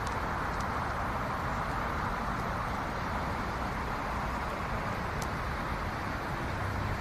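Steady hum of distant road traffic, with a low drone joining near the end.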